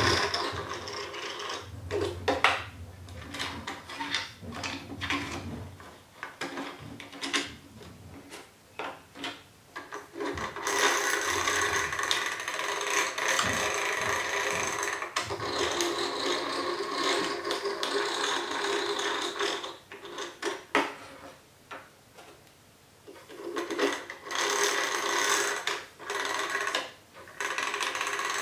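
Ratchet and pawl of a 3D-printed plastic crane winch clicking as the handle is cranked under load: scattered single clicks at first, then long spells of fast, continuous clicking, with a quieter gap about two-thirds of the way through.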